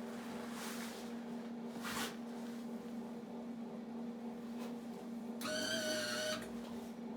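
Electric welder humming steadily, with a pitched motor whine about five and a half seconds in that lasts about a second: the wire-feed welder's trigger pulled without an arc catching, because the ground connection is poor.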